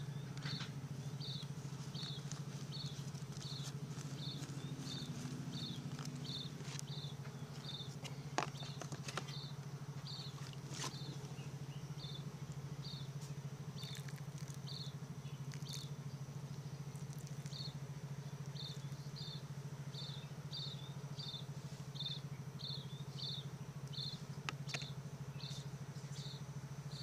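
Short high chirps repeating about three every two seconds, dropping out for a few seconds past the middle and then resuming, over a steady low hum, with a few faint knocks.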